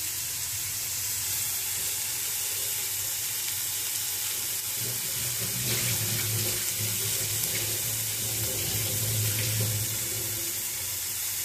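Grated carrots and mashed potato frying in a steel kadai on a gas burner: a steady sizzling hiss, with a low hum for several seconds in the middle.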